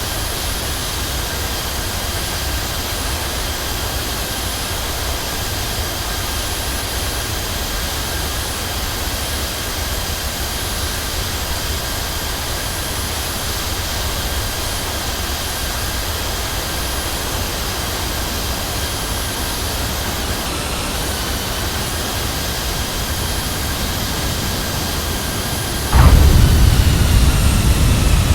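Jet airliner's engines running steadily, with a few steady whining tones over a broad rush. Near the end a much louder low rumble sets in suddenly, the sound of the wheels touching down on the runway, while the engine whine starts to fall.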